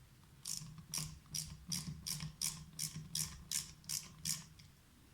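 Hand ratchet clicking in about eleven even back-and-forth strokes, nearly three a second, as it backs out one of the screws holding the cover of an LPG (autogas) pressure reducer.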